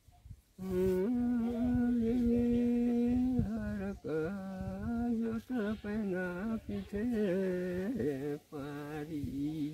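An elderly man singing a slow folk tune on his own, with no accompaniment, in long held notes that waver. He starts about a second in and breaks briefly for breath twice.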